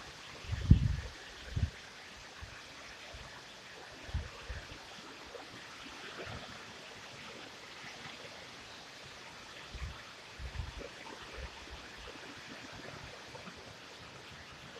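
Heavy rain shower falling steadily, with gusts of wind buffeting the microphone as short low rumbles about a second in, around four seconds, and again around ten seconds.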